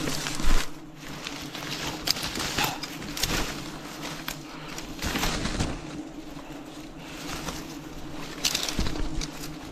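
Steady hum of wild bees buzzing around their hive, with irregular rustling and handling noises over it; the loudest come about half a second in and again near the end.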